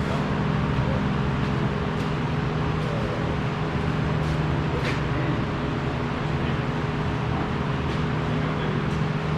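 Steady mechanical drone with a constant low hum and a few faint clicks.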